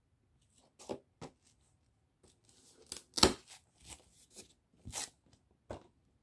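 Cardboard action-figure packaging being handled and opened by hand: a run of short scrapes, rustles and knocks as the window box is worked out of its outer sleeve, the loudest a little past three seconds in.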